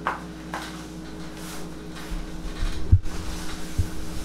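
Irregular dull low thumps starting about two seconds in, the loudest near the three-second mark, as hands take hold of a patient lying on a padded massage table. A steady low hum runs underneath.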